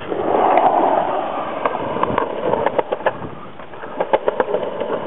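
Skateboard wheels rolling on the concrete of a skatepark bowl: a rough rumble, loudest in the first second, then lower and steady, with scattered sharp clicks.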